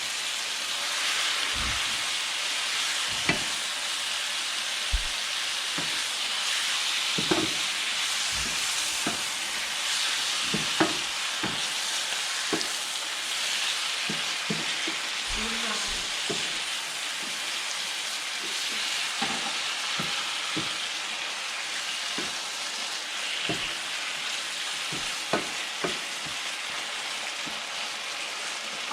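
Food sizzling steadily in a hot pan while being stirred, with a spatula knocking and scraping against the pan at irregular intervals.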